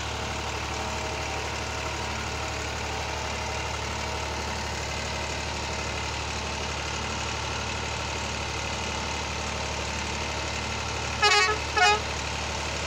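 Massey Ferguson 260 tractor's three-cylinder diesel running steadily while it pulls a fully loaded trolley. Near the end the horn gives two short, loud toots about half a second apart.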